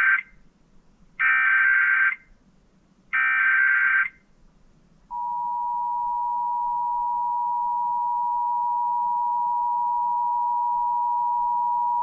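Emergency Alert System header and attention signal: the end of one short, raspy data burst and then two more, about two seconds apart (the encoded SAME header, sent three times). From about five seconds in comes the steady two-tone EAS attention signal, a constant dual tone.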